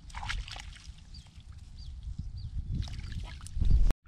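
Hands sloshing and splashing in a shallow muddy puddle while groping for fish, over a steady low wind rumble on the microphone. Faint high chirps come and go. The rumble surges loudest just before the sound cuts off suddenly near the end.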